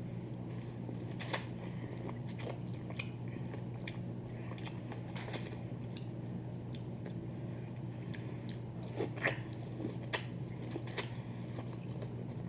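Close-miked eating of a boiled crawfish meal: scattered crunches and chewing, with a cluster of louder ones about nine seconds in. A steady low hum sits underneath.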